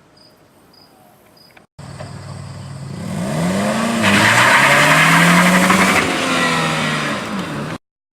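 A car engine revving and accelerating, its pitch rising and falling, with loud road and tyre noise at the peak about four to six seconds in, then cut off abruptly. Faint crickets chirp in the first couple of seconds.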